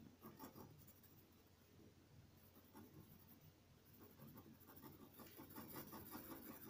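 Pen nib scratching on paper in quick short strokes as scribbled grass and loops are drawn; faint, growing busier and louder in the last couple of seconds.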